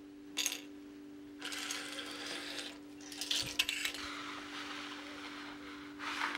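Hard seashells clicking and scraping against each other and the marble tabletop as they are handled, in several short clattering spells with the sharpest clicks near the middle. A steady low hum runs underneath.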